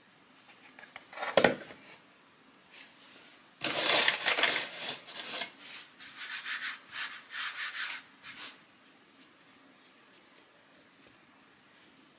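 Floury hands working bread dough on a wooden cutting board: a single thump about a second and a half in, then several seconds of rubbing strokes, the last few short and evenly spaced, stopping about eight seconds in.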